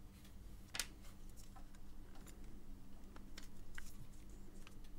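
Faint small clicks and taps of a precision screwdriver and its bit being handled and worked against the metal-and-plastic case of a vape mod, with one sharper click about a second in, over a faint steady hum.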